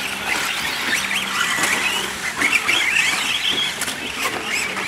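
Radio-controlled 4x4 short-course trucks racing on a dirt track: their motors whine up and down in pitch as they accelerate and brake, over a haze of tyre and dirt noise.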